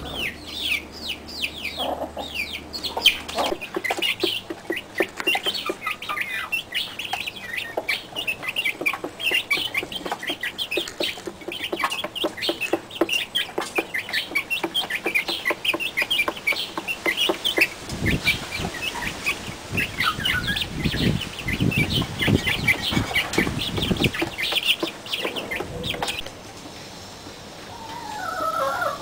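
Chicks peeping continuously, a dense stream of short high-pitched falling calls, with a hen clucking lower and louder in the second half.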